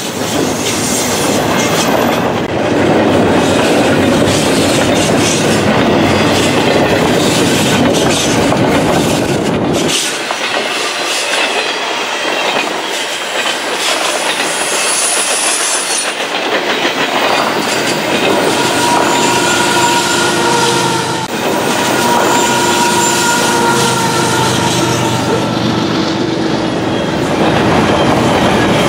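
Double-stack intermodal container cars rolling past with a steady rumble and the clickety-clack of wheels over the rails. A sustained wheel squeal joins in past the middle.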